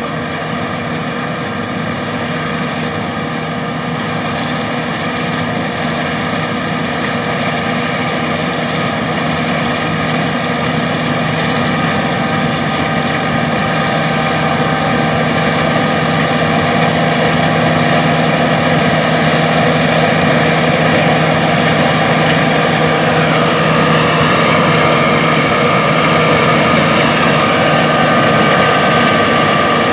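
John Deere S780 combine running while harvesting wheat: a steady drone of engine and threshing machinery with several high whining tones, growing gradually louder.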